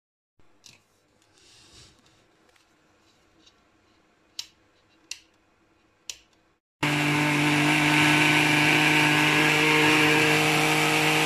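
A few light clicks, then about seven seconds in a small countertop blender switches on and runs steadily at one speed with a constant motor hum, pureeing spinach leaves into green juice.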